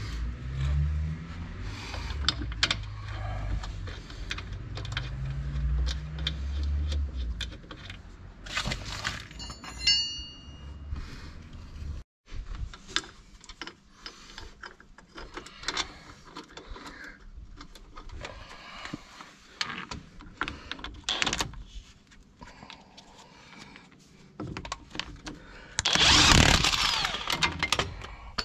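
Metal tools clinking and knocking on steel suspension parts during a front tie rod end replacement, with a louder noisy burst of tool work about 26 seconds in. Over the first several seconds a low drone rises and falls underneath.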